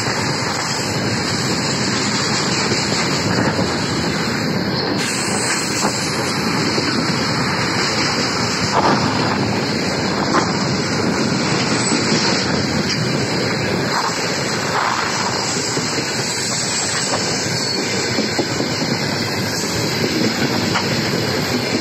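Freight train wagons, tank cars then open gondolas, rolling past: a steady rumble and rattle of steel wheels on the rails, with a few sharper clicks over rail joints.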